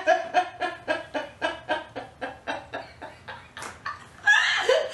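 Women laughing hard: a rhythmic cackling laugh of about five pulses a second that slowly weakens, then a louder burst of laughter about four seconds in.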